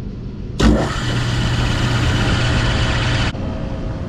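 Belt-driven HVAC blower running: a rush of air over a steady low hum. It starts abruptly about half a second in and cuts off sharply near the end.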